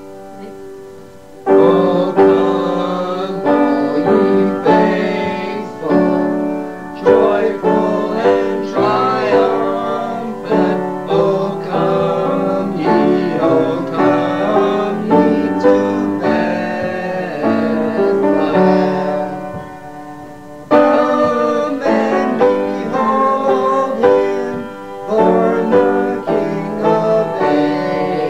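Two men singing a Christmas carol in an informal home recording, accompanied on piano. Near the two-thirds mark there is a brief lull before the singing and playing come back in loudly.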